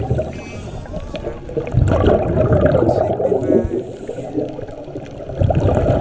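Underwater gurgling of scuba regulator exhaust bubbles as divers breathe out, in surges a few seconds apart.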